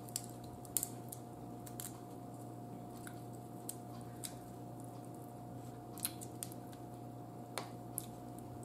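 Blue crab shell being cracked and picked apart by hand: small scattered snaps and clicks, about ten of them, spread irregularly over a faint steady hum.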